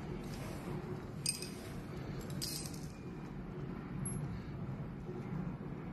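Two light metallic clinks about a second apart, from a tool and screws against metal while the treadmill motor's mounting screws are undone, over a low steady hum.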